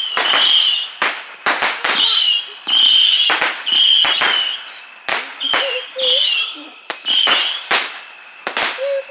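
Consumer fireworks firing a rapid string of shots, about one or two sharp bangs a second, most of them followed by a short high whistle, some rising in pitch.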